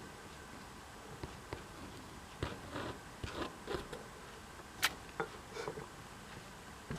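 A degu sneezing: a run of tiny, short sneezes, the sharpest and loudest about five seconds in.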